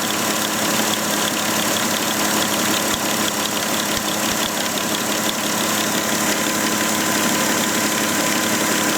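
Volkswagen Touareg engine idling steadily, with a steady whine and a fast, light ticking over it. This is the strange engine noise whose source the owner cannot pin down.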